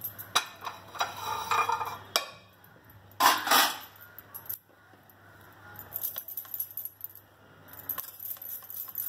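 Bangles on a woman's wrists jingling and clinking as her hands roll a hot sesame-jaggery ladoo and scoop the mixture from a steel pot, in scattered short clicks with the loudest jingle about three seconds in.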